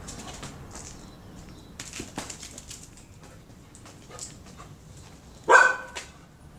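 A small dog gives one loud bark about five and a half seconds in, barking at a cat perched out of reach on a wall. Fainter clicks and knocks come earlier.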